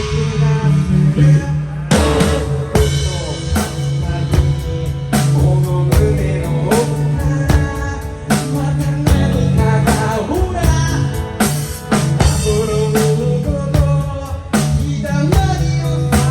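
A live rock band playing loudly: a drum kit keeping a steady beat, with bass, guitar and a voice singing at times.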